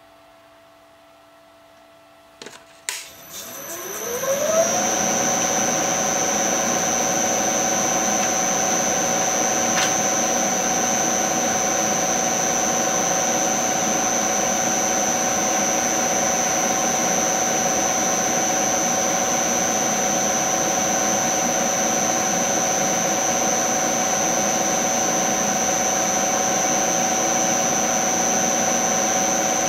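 Milling machine switched on with a click and spinning up in a rising whine, then running steadily at speed with a high whine. Its drill chuck turns a small drill bit that is drilling set-screw holes in a boring bar sleeve.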